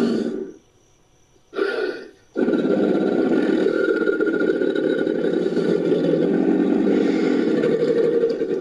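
Crocodile screaming: a rough, gravelly cry. A call trails off at the start, a short cry comes about a second and a half in, and then one long scream of about six seconds cuts off near the end.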